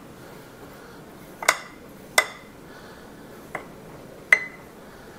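Metal spoon clinking against a ceramic ramekin four times, each clink ringing briefly, while sugar is spread over a crème brûlée.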